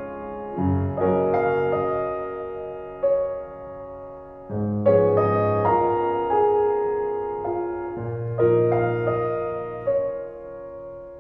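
Soft background piano music: chords struck every second or two and left to ring and fade.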